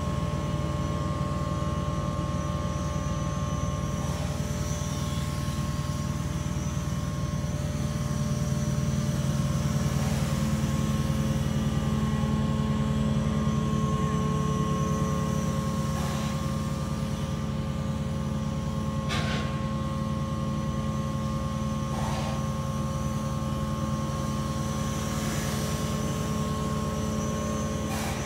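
Small quadcopter drone (Zuhafa 720P foldable) flying, its motors and propellers buzzing steadily with several held tones over a steady low hum. A few faint short clicks come through now and then.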